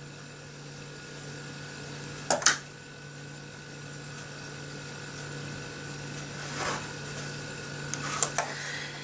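Quiet handling of a pastry pie lid with scissors and fingers on a wooden board: a short sharp snip-like sound about two seconds in, softer brushing sounds later and two small taps near the end, over a steady low hum.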